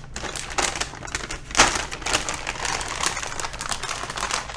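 Anti-static plastic bag crinkling and rustling as a graphics card is pulled out of it by gloved hands, with a sharper crackle about one and a half seconds in.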